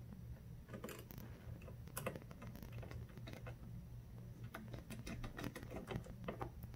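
Faint, irregular small clicks and ticks of a small screwdriver and screws on the CPU cooler's metal mounting hardware as it is fastened around the motherboard's CPU socket, over a low steady hum.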